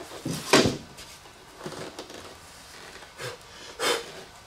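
Foam model-airplane fuselage being pulled out of its fitted styrofoam packing tray: a scraping knock about half a second in, then lighter rubs and a short foam-on-foam scrape near the end.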